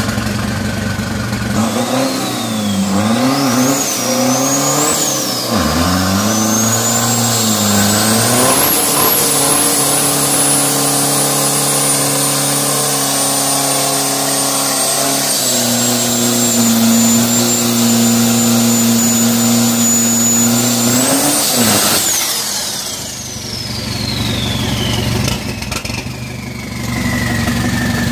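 Drag-prepped Isuzu D-Max pickup's turbodiesel engine revving hard through a tyre-smoking burnout. The revs swing up and down at first, then hold high with a steady turbo whistle, drop a step and hold again. The engine cuts off about two-thirds of the way through, and the turbo's whine then falls slowly for several seconds.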